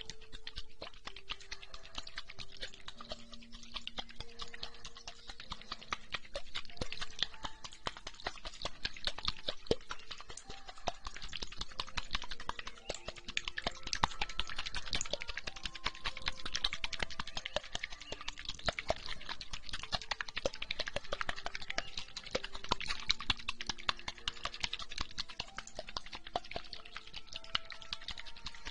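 Close-miked ear massage with aloe vera gel: a dense, fast, wet and sticky crackling that swells and eases in waves. Faint soft music plays underneath.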